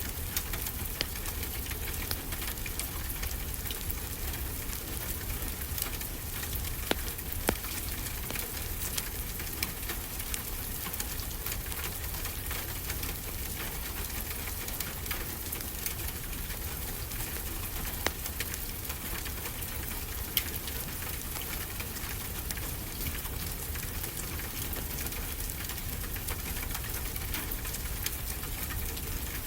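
Steady rain with a low rumble underneath, and scattered sharp crackles and pops of a wood fire; a few pops stand out louder.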